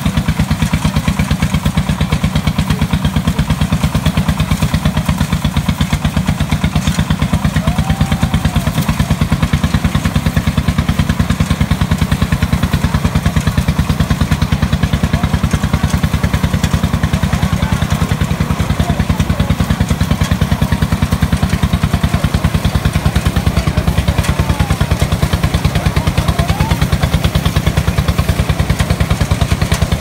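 Engine-driven drum rice thresher running steadily at a constant speed, the engine giving a rapid even beat while bundles of rice are fed into the drum.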